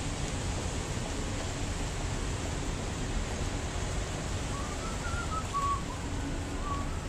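Steady low rumble of street traffic, with a short run of whistled notes, rising and falling, from about four and a half seconds in.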